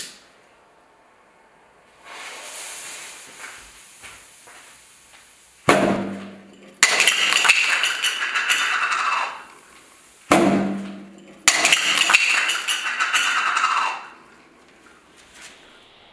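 Weco 'Happy New Year' table bomb going off, twice over: a fuse hisses for a few seconds, then a sharp pop. About a second later comes a couple of seconds of clattering and clinking as the ejected party favours land on the table.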